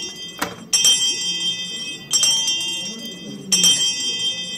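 A bright, shimmering bell-like chime sound effect, struck again about every second and a half, three new strikes in all, each ringing on with many high tones. A single sharp click comes about half a second in.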